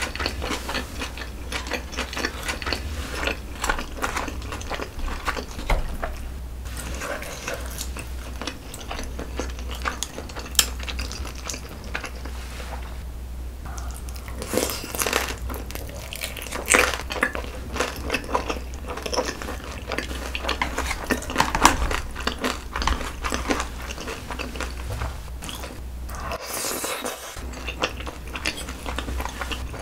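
Close-miked eating sounds: biting and chewing spicy rosé braised chicken and noodles, with small crunches and chopsticks clicking against the plastic tray, over a steady low hum.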